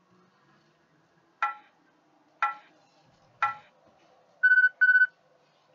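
Workout interval timer counting down: three short beeps about a second apart, then two longer, steady beeps, signalling the end of a work interval and the start of a rest.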